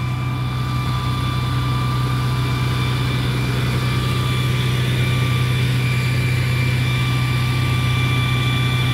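Parked fire engine's diesel engine idling steadily close by: a loud, even low hum with a faint steady whine above it.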